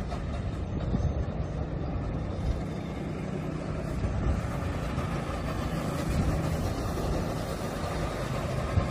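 Go-kart engines running as the karts lap the track, a steady low drone with faint engine tones.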